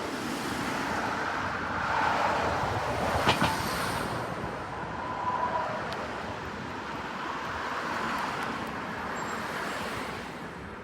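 Road traffic passing, a steady rush of tyres and engines that swells and fades twice, with one sharp click about three seconds in.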